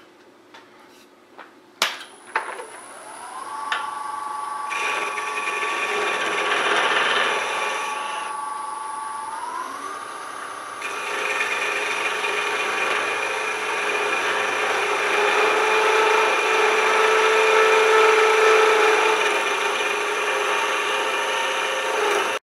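Wood lathe running with a steady motor whine that rises in pitch about ten seconds in, after a couple of clicks, while a turning tool scrapes and cuts the spinning walnut and Alumilite top to part off its handle. It cuts off suddenly near the end.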